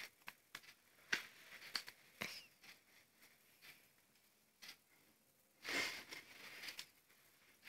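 Faint scattered clicks and taps of plastic crayons being handled in their clear plastic case as one is lifted out. A short hiss-like noise comes about six seconds in.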